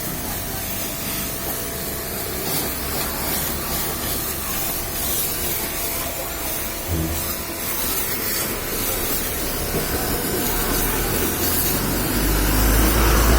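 Steady hiss of water spraying, as when washing a vehicle, with a low rumble growing louder near the end.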